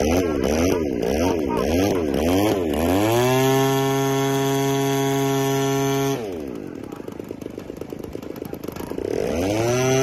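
O.S. 155 engine of a P-47 model airplane, blipped up and down about twice a second, then held at high revs for about three seconds. The throttle is cut to a low idle about six seconds in, and the engine runs up again near the end.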